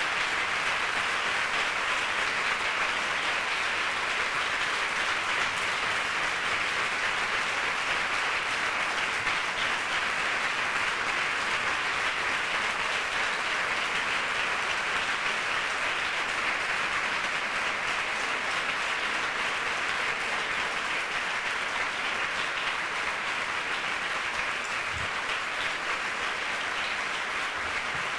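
Long, sustained applause from a large crowd of many people clapping, easing slightly near the end.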